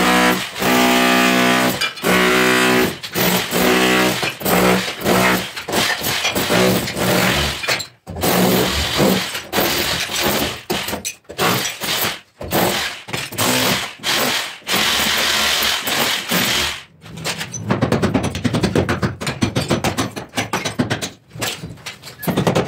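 An electric demolition hammer chiselling out a brick-and-mortar wall, its motor running in spurts with many sharp impacts, and broken brick cracking and falling. The impacts come thickest near the end.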